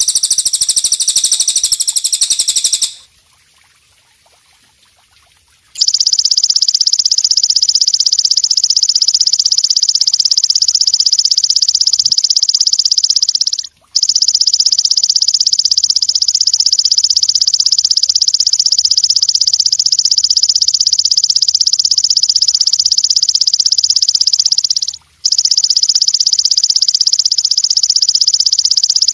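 Belalang kecek (a katydid) stridulating: a steady, very rapid, high-pitched buzzing trill in long unbroken runs of about 8 and 11 seconds, cut by short gaps. A different dense high trill sounds for the first three seconds, followed by a pause of a few seconds.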